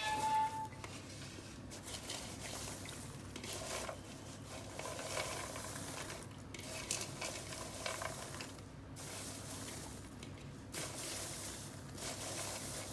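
Popped popcorn rustling in a pan as it is tossed and stirred to mix in the salt, in uneven bursts of scraping and shuffling.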